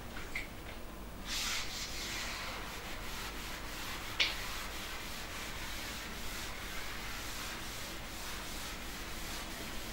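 Pen strokes rubbing across a writing surface as a graph is drawn, starting about a second in, with one brief sharper stroke about four seconds in.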